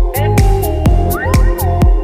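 Electronic background music with a steady beat of about four strikes a second and synth notes that slide up and down in pitch.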